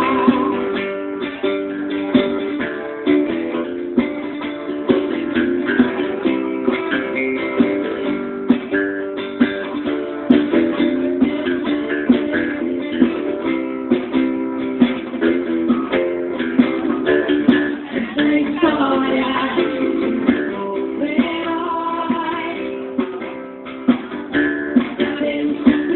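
Instrumental passage of a song: acoustic guitar strumming and picking chords steadily, with no voice.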